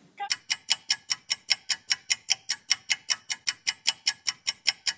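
Clock-ticking sound effect: a steady run of sharp, evenly spaced ticks, about five a second.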